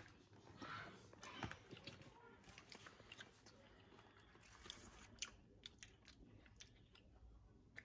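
Faint chewing of a gummy bear, with scattered small clicks and mouth sounds.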